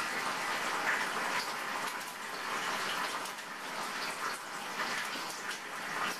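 Bacon frying in a pan, giving off a steady sizzle.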